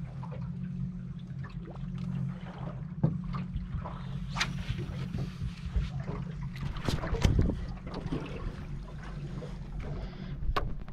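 Scattered knocks, bumps and clatters of gear and a caught queenfish being handled in a small fishing boat, the camera itself being picked up and moved near the end, over a steady low hum of wind and water.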